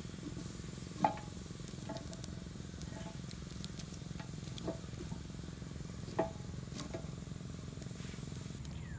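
Stirring in a metal cooking pot: a spoon clinks against the pot several times, the loudest clinks about a second in and about six seconds in, over a steady low rumble.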